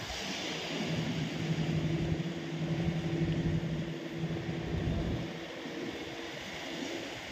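A steady, low-pitched drone that holds for about four seconds and then cuts off, over wind and sea noise.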